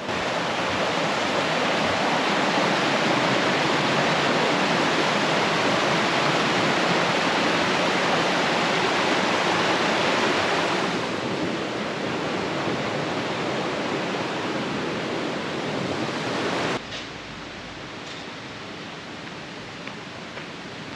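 Steady rushing of a fast mountain stream. It eases a little about eleven seconds in and drops suddenly to a quieter hiss about seventeen seconds in.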